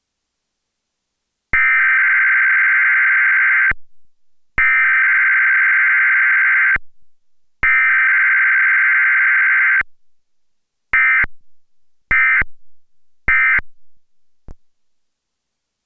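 Emergency Alert System SAME data bursts for a Required Weekly Test: three identical loud bursts of about two seconds each, about a second apart, carrying the alert header, then three short bursts about a second apart, the end-of-message code.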